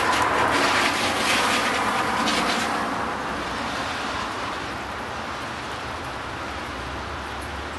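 A vehicle passing by, loudest over the first three seconds and then fading away.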